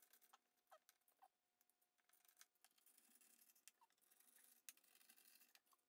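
Faint scattered small clicks and light scraping of a hand screwdriver driving screws into a subwoofer's metal amplifier plate.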